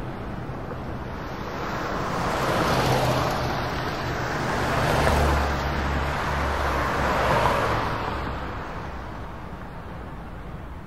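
Road traffic: a rushing noise that swells and fades about three times over a low steady hum, then eases off near the end.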